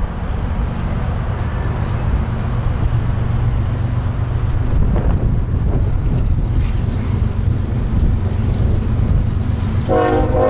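Diesel locomotives of an approaching freight train, a steady low engine rumble that grows slightly louder as they near, with wind buffeting the microphone. The lead locomotive's horn starts sounding just before the end.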